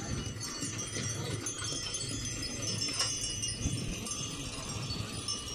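Metal jingling and clinking from a horse-drawn forecart and its trailed tined grassland implement moving over a meadow, with ringing high notes over a low rumble and a few clicks.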